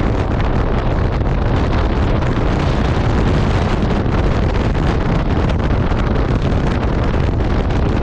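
Wind buffeting the microphone as a bass boat runs fast across choppy water, with the outboard motor and rushing water underneath in a loud, steady rush.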